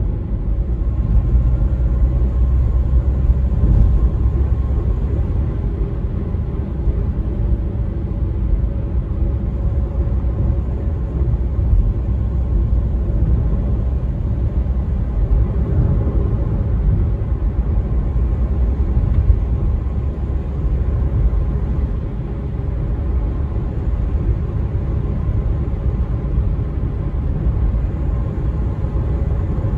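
Steady low rumble of a car's tyres and engine heard from inside the cabin while driving along an expressway, with a faint hum over it.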